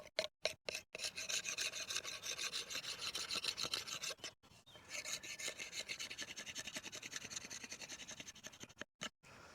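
Kitchen knife blade scraping and shaving along a hardwood bow stave in quick, repeated strokes, with a short pause about four and a half seconds in. The wood is being tidied up and smoothed.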